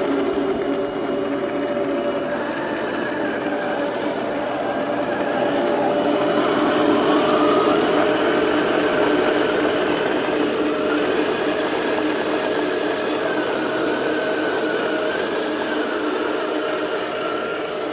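Henglong 1/16 RC M1A2 Abrams model tank running: a steady mechanical whir whose higher tone wavers up and down as it drives, a little louder in the middle.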